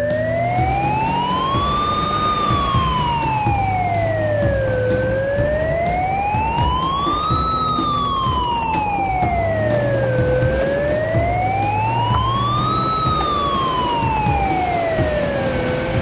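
Police car siren wailing, rising and falling slowly through about three full cycles of roughly five seconds each, over a low rumble.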